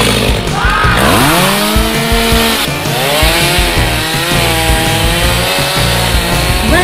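Chainsaw sound for a toy chainsaw cutting through a wire cage: a steady motor buzz whose pitch revs up and falls away about a second in, then wavers up and down.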